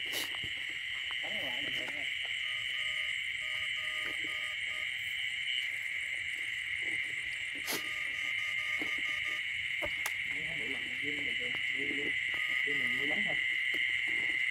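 Steady night chorus of insects in the rice fields, two high unbroken tones throughout. Lower wavering calls join it in the second half, with a couple of sharp clicks.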